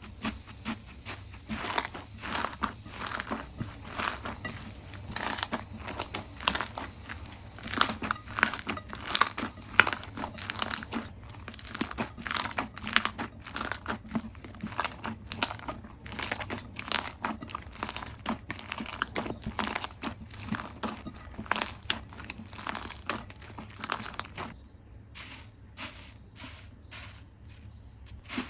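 Jelly slime being squeezed and poked by hand, giving a dense run of irregular sticky clicks and crackles that thin out near the end.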